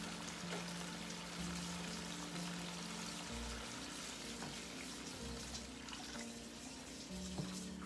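Water poured from a jug into a hot wok of sautéed chicken, starting partway in, with a steady splashing pour. Background music with long held notes plays throughout.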